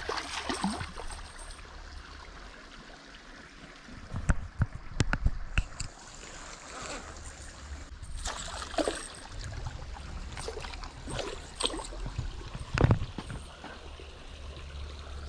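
A small hooked gar splashing and thrashing at the water's surface in irregular bursts, with scattered sharp knocks.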